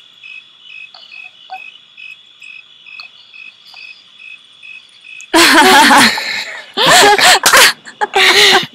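Crickets chirping in an even, pulsing rhythm over a steady high trill. About five seconds in, loud bursts of a person's voice without words break in, rising and falling.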